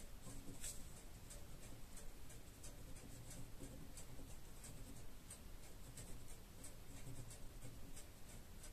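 Pen scratching on paper in short, quick strokes, about two or three a second, faint against a low room hum.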